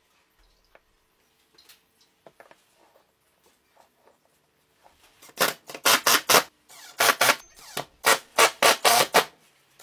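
Cordless impact driver driving wood screws into plywood in short trigger bursts, three groups of quick loud bursts in the second half. Before them, a few faint clicks of plywood blocks being set on the bench.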